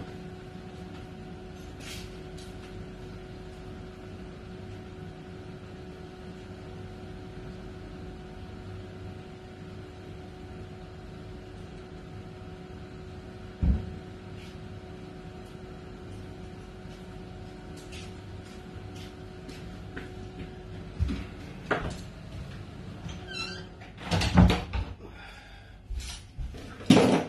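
Steady hum of a room's window air conditioner, with one sharp knock about halfway; the hum stops about three-quarters of the way through. Near the end comes a run of knocks and clatter as someone moves about close to the microphone.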